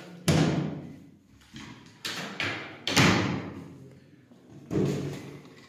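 Hinged wooden wardrobe doors being pushed shut one after another: about six thuds, each with a short ringing decay, the loudest about three seconds in.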